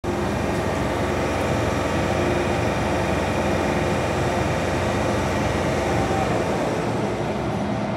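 MTR M-Train metro car heard from inside as it slows into a station: a steady running rumble with a few level whining tones over it. The deepest rumble dies away about six seconds in as the train comes to a stop.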